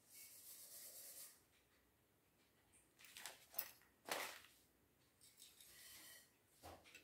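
Faint handling noises: a brief rub or rustle, then several light clicks and taps a few seconds in, and one more near the end.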